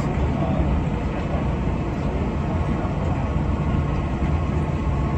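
Shizuoka Railway 1000 series electric train heard from inside the front car: a steady low rumble.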